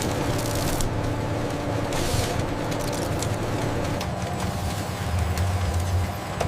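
Production machinery running with a steady hum and scattered clicks; the tone of the hum changes about four seconds in.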